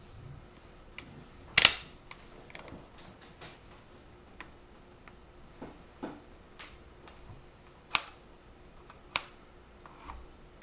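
Tegu magnetic hardwood building blocks clicking and clacking together as they are set in place, an irregular scatter of sharp wooden clicks with the loudest about a second and a half in.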